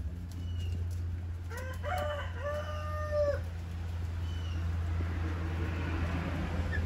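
A rooster crows once, starting about a second and a half in, ending on a long held note, over a steady low hum. A few short, high peeps come from the flock.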